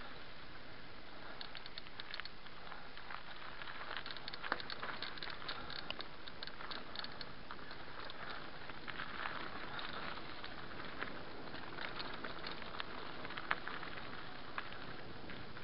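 Mountain bike descending a dry, stony dirt trail: steady tyre noise over dirt and loose stones with frequent small clicks and rattles, and a couple of sharper knocks.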